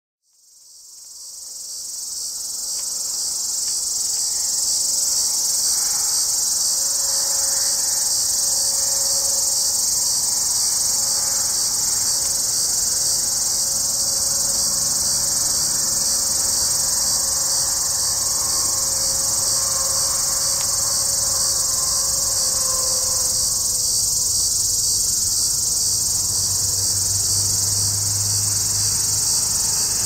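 Hadoa duryi cicada singing: one continuous, steady high-pitched buzz that fades in over the first few seconds and then holds without a break.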